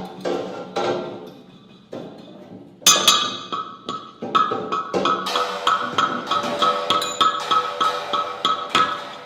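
Struck percussion music: sparse ringing struck notes, then a sharp loud strike about three seconds in, after which an instrument is struck in a quick even rhythm of about four strokes a second, each stroke ringing at the same pitch.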